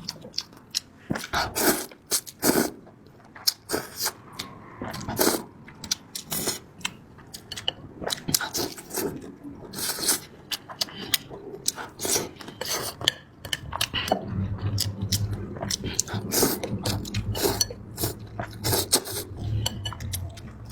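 Spicy noodles being eaten close to the microphone: chewing and mouth sounds with many sharp clicks and clinks of utensils against a dish. About two-thirds of the way in, a low steady hum joins.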